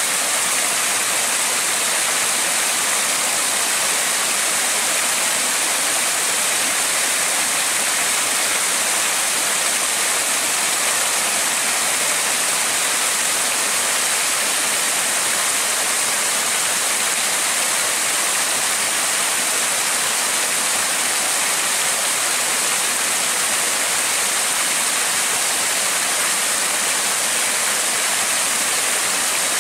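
Steady rush of river water pouring over a low concrete weir and splashing below, an even hiss with no breaks.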